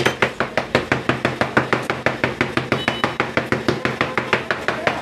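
Fast, even patting of fingertips on a round of sheermal dough, pressing sesame seeds into it against the tabletop, about seven pats a second.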